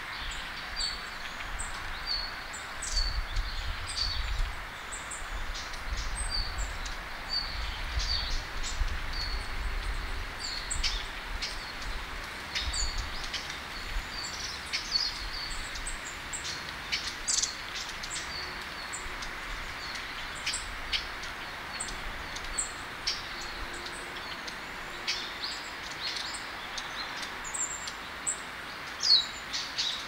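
Small birds calling: short, high chirps repeated every second or so, over a steady outdoor background with a low rumble through the first half.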